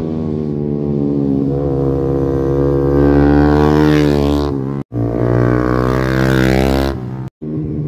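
Small-capacity underbone race motorcycles running at high revs as they pass close by, the engine note swelling as each bike goes past. The sound cuts out abruptly twice between takes.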